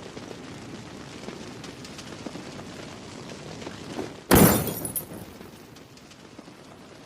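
Molotov cocktail sound effect: a steady low noise with scattered small clicks, then about four seconds in a sudden loud crash of the glass bottle shattering and bursting into flame, dying away within about a second.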